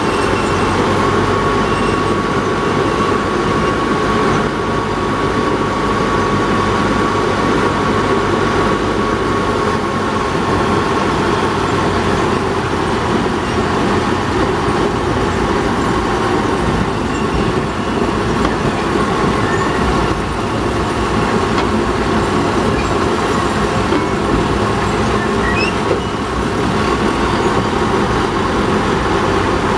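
Small diesel shunting locomotive running steadily as it travels along the track, its engine noise mixed with the rumble of wheels on the rails. A thin, steady whine is clearest in the first half.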